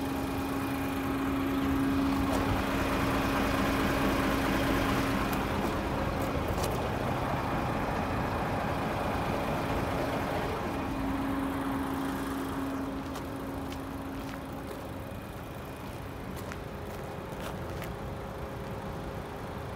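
Diesel engine of a DAF CF 460 tractor unit idling steadily, a constant low hum with a mechanical rattle; it gets somewhat quieter about two-thirds of the way through.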